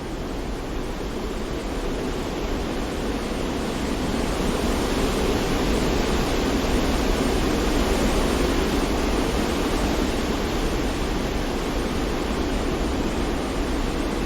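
Steady rushing noise of wind and water from windsurfing, with no distinct splashes or tones. It swells a little in the middle and eases slightly near the end.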